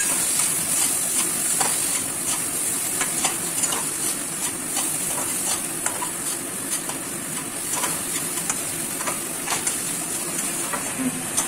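Chopped onion, tomato and chillies sizzling in hot oil in a kadhai while a spatula stirs them, scraping and tapping against the pan every second or so.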